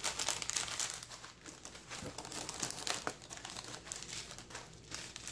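Crumpled newspaper packing and plastic sample packets crinkling and rustling as hands dig through a cardboard shipping box, an irregular crackle.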